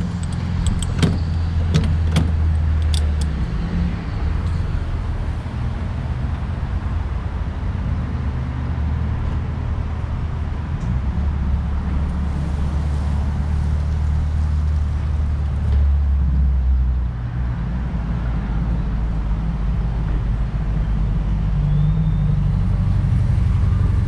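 Diesel dispenser pumping fuel through the nozzle into a pickup's tank: a steady low hum, with a few sharp clicks in the first few seconds as the nozzle is handled.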